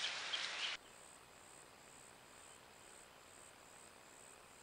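A loud steady hiss with a few short chirps cuts off abruptly under a second in. After it comes a faint, high-pitched insect call that pulses about twice a second.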